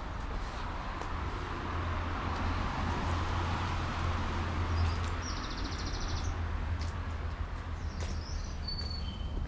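Garden ambience: a steady low rumble and a broad hiss that swells in the middle and fades again, with a short rapid bird trill about five seconds in and two thin bird whistles near the end.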